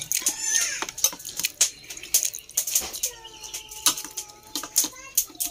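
Close-up eating sounds: chewing and lip smacks as fried rice is eaten from the fingers, many small wet clicks. From about three seconds in, a held pitched sound with several tones runs in the background for about two seconds.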